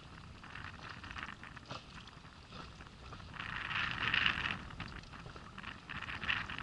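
Small waves splashing and crackling against the hull of an inflatable boat, with scattered light clicks and a louder burst of splashing about four seconds in.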